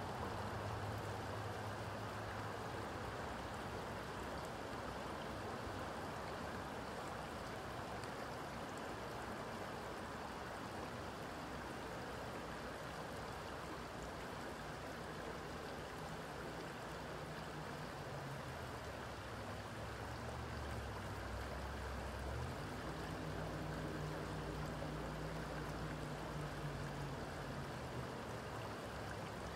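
Creek water flowing steadily over rocks, an even babble with no breaks. A low hum lies underneath and shifts in pitch a few times in the second half.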